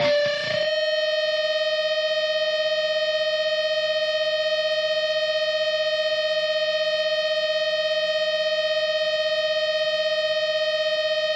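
Electric guitar feedback in a doom metal instrumental track: one high note held steady and unchanging, with a slight fast wavering in its loudness.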